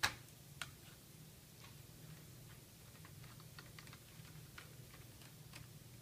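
Small clicks and ticks of a screwdriver working Torx screws into a laptop's metal drive caddy. One sharp click comes at the very start, another about half a second later, then faint scattered ticks.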